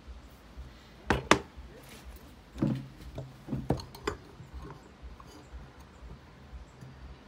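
Handling noises: tools set down on a plastic table and brass chandelier parts handled. Two sharp clacks about a second in, then several lighter knocks and clinks, fading to faint ticks near the end.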